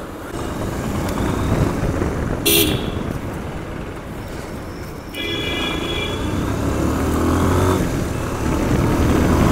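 Bajaj Pulsar 150 motorcycle running along in traffic, its engine a steady low hum that grows louder in the second half. A vehicle horn gives a short toot about two and a half seconds in and a longer beep about five seconds in.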